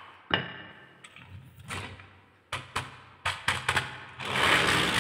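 Handling noises around a wooden marble run. A wooden block is knocked down onto the wooden track about a third of a second in. A scatter of sharp clicks of wood and glass marbles follows, and near the end comes a longer rattle as the toy dump truck loaded with glass marbles is moved, the marbles shifting in its bed.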